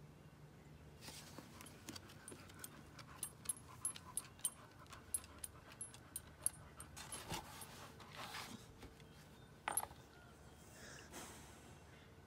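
A black Labrador walking on a wooden deck: a run of light clicks and jingles from her nails and collar tag, then panting breaths.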